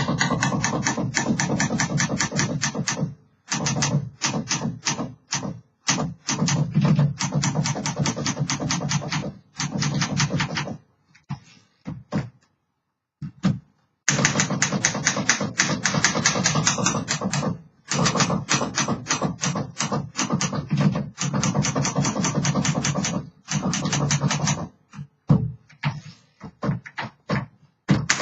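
1936 Underwood Universal manual typewriter being typed on: runs of rapid key strikes, many a second, broken by short pauses, with a sparser stretch of only a few strikes about halfway through.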